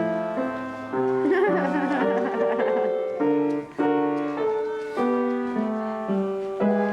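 Piano music: a flowing melody of struck notes over sustained chords, played steadily.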